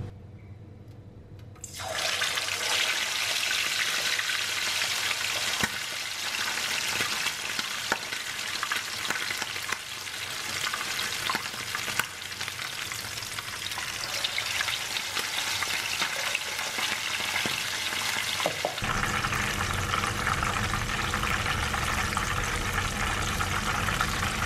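Chicken drumsticks frying in hot oil in a nonstick pan: a dense sizzle full of fine crackles that sets in about two seconds in, when the chicken goes into the oil. The sizzle keeps going and takes on a fuller, lower tone near the end.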